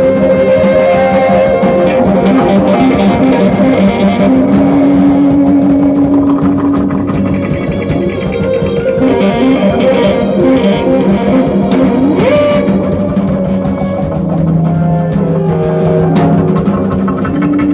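A live band playing instrumental jazz-rock: a drum kit and electric guitar, with long held notes over a dense, steady beat.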